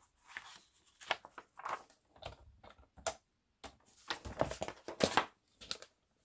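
Paper book pages being handled and rustled in short, irregular bursts, with light clicks and knocks as a plastic paper trimmer is shifted on the table; the busiest handling comes about four to five seconds in.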